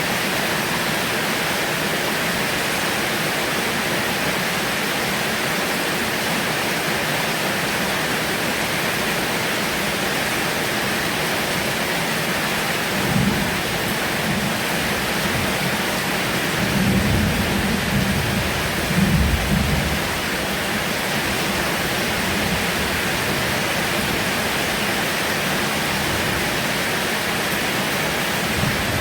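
Heavy rain falling steadily, with low rumbles of thunder rolling in about halfway through, the loudest a little after that.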